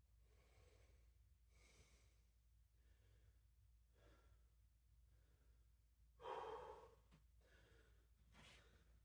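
A man breathing hard from exercise: faint breaths one after another, about every second or two, with one louder exhale about six seconds in.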